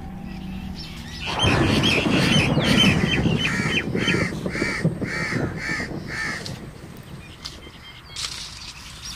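Crows cawing in a steady series of about two caws a second, with more caws near the end. Under the first caws, dry maize leaves rustle loudly as they are pushed aside, starting about a second in and dying away by the middle.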